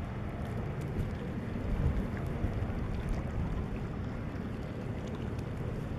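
Wind buffeting the camera microphone: an uneven low rumble that holds steady in level, with a few faint ticks.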